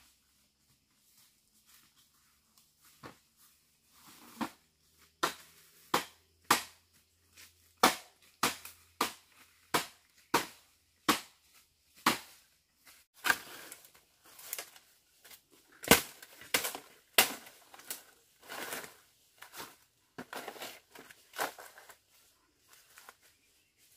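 Repeated sharp cracks of dry wood or bamboo being struck and broken, starting about three seconds in and coming irregularly about once or twice a second, with a few longer crunches of dry material among them.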